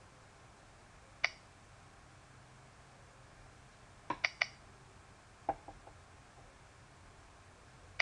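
Computer mouse clicks over a faint steady hiss. There is a single click about a second in, a quick run of three clicks just after four seconds as a menu item is double-clicked open, a few softer clicks around five and a half seconds, and another click at the end.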